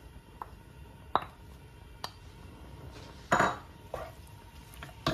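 Wooden spoon knocking against a nonstick wok while stirring raw minced lamb and garlic-ginger paste: a handful of sharp, separate knocks spread over a few seconds, the loudest about three and a half seconds in.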